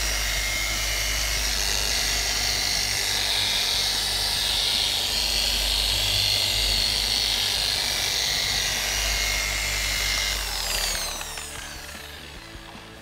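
OSREN dual-action polisher running steadily with a foam finishing pad against a car's paint while spreading liquid wax. About ten seconds in it is switched off and the motor winds down, its pitch falling.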